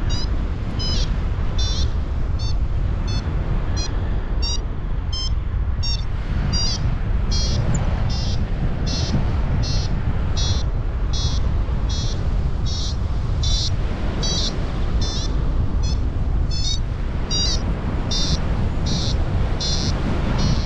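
Paragliding variometer beeping in short high tones about twice a second, some of them chirping in pitch, the sign that the glider is climbing in lift. Under it, steady wind rush on the microphone from the airflow in flight.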